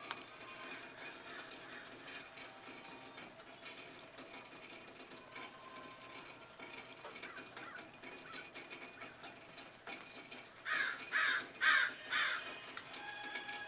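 Four harsh, loud bird calls in quick succession near the end, with faint high chirps of small birds earlier on.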